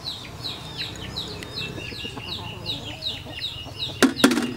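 Chicks peeping continuously, a quick run of short falling high notes about four a second, with a louder hen cluck near the end.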